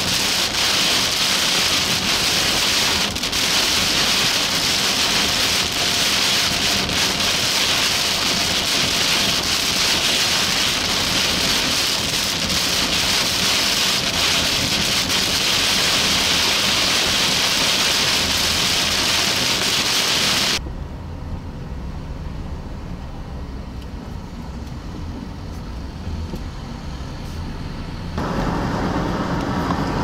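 Heavy rain hitting a car's windshield and roof while driving, with tyres hissing on the wet road. About twenty seconds in it cuts suddenly to a quieter low rumble of a vehicle on the road, and near the end to broader highway traffic noise.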